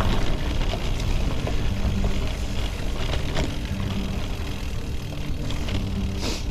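Specialized Turbo Creo e-road bike riding over a bumpy dirt trail: a continuous rumble and rattle of tyres and frame, with sharp knocks from bumps about three seconds in and, loudest, near the end.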